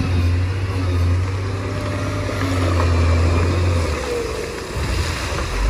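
Heavy diesel machinery engine running under load, a deep steady drone that eases off about four seconds in.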